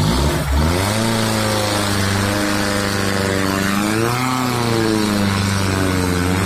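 Diesel engine of a Daihatsu Taft 4x4 running steadily under load, revving up briefly about four seconds in and settling back.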